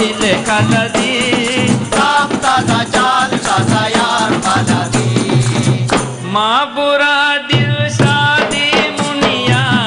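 Boduberu music: bodu beru drums beating a fast, dense rhythm under lead and chorus singing. About two-thirds through the drums stop for about a second under a rising sung line, then come back in.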